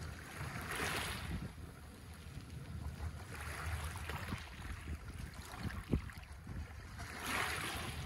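Small Adriatic Sea waves washing in over a pebble beach, swelling three times into a rushing wash of water over stones, over a low rumble of wind on the microphone. A single sharp click about six seconds in.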